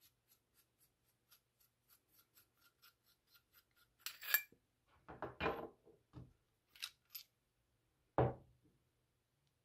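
Metal parts of a reloading decapping die being unscrewed and handled: a run of faint, quick clicks about five a second, then a sharp clink about four seconds in, followed by a few knocks and light metallic clinks as the brass and steel pieces are set down on a wooden bench.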